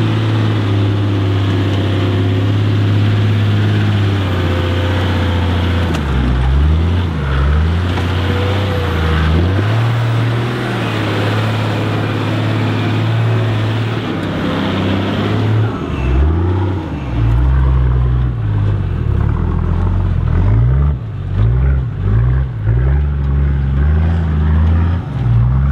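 A 4WD ute's engine labouring up a steep, rutted dirt climb. The revs hold steady at first, then rise and fall again and again as the throttle is fed on and off, with a run of quick rev blips in the second half.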